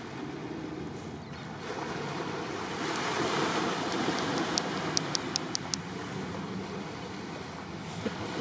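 Small, calm sea waves lapping and washing up a sandy, seaweed-covered shore, swelling about three seconds in. Just past halfway comes a quick run of six or so sharp, high clicks.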